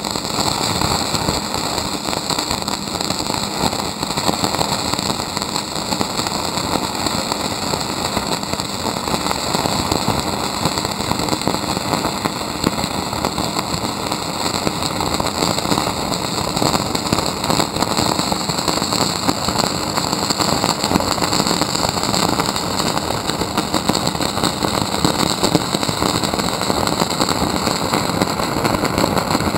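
Stick (SMAW) welding with a 1/8-inch 6013 electrode: the arc crackles and sizzles steadily and loudly, then cuts off abruptly at the end as the arc is broken.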